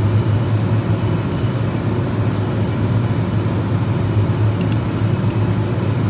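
Steady, loud industrial machinery drone with a strong constant low hum, and a couple of faint ticks near the end.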